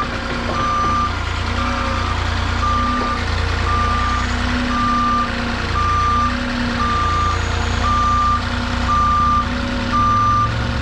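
Forklift's reversing alarm beeping steadily at an even pace, about one and a half beeps a second, over the low running of its engine.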